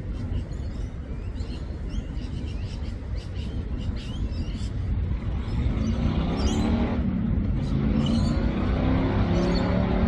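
Low rumble with an engine drawing nearer, growing louder from about halfway through, while small birds chirp.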